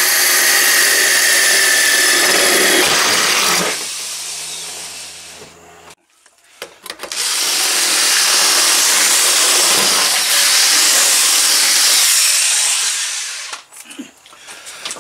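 Handheld power drill running as it bores through a sheet-metal patch plate and garage door skin, in two long runs: one in the first few seconds and another from about 7 s to near the end.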